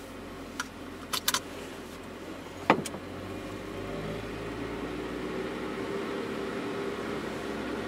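GAZelle truck's engine running, heard from inside the cab as it drives slowly, growing louder about four seconds in. A few short clicks come early, with a single sharp knock, the loudest sound, near the three-second mark.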